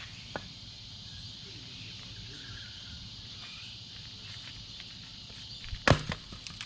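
Steady high chirring of insects, with a few faint ticks and one sharp knock about six seconds in.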